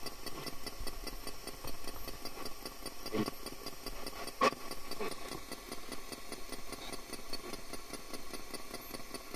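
Ghost-hunting spirit box sweeping through radio stations: a steady run of static chopped by rapid, even clicks, with a few short fragments of sound, one of which the investigators caption as a voice saying "me".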